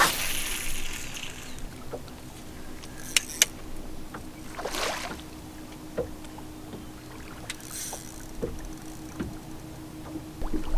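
Bass boat's bow-mounted electric trolling motor humming steadily. A splashy hiss of water comes at the start, and another near the end, with two sharp clicks a little after three seconds and a short swoosh around five seconds.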